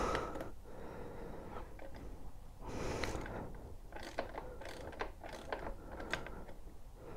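Faint clicks and scraping of an Evotech rear spindle end cap being screwed by hand into a Honda CB1000R's rear wheel spindle, with a brief scrape about three seconds in. The fit is tight.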